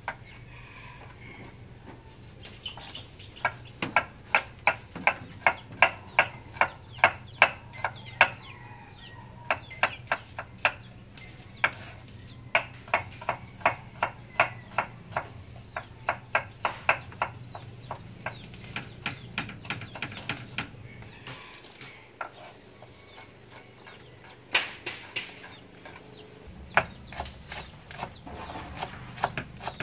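Kitchen knife chopping shallots and green onions on a wooden cutting board: long runs of sharp, even chops at about two to three a second, with short pauses between runs.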